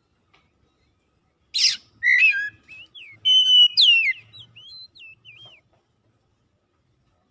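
Oriental magpie-robin singing: a harsh noisy note about a second and a half in, then a quick run of clear whistled notes with rising and falling glides lasting about three seconds, before it stops.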